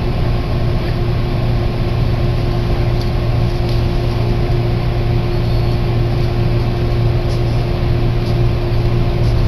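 Electric train running, heard from inside the carriage: a steady low hum with a constant higher tone over even rumble.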